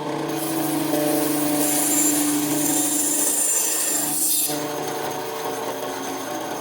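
A power tool working wood: a steady motor hum under a rasping, sawing hiss that eases off briefly about four seconds in.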